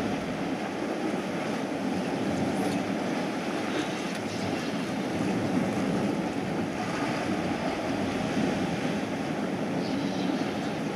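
Sea surf washing on a rocky shore, with wind buffeting the microphone; a steady rushing noise with no lulls.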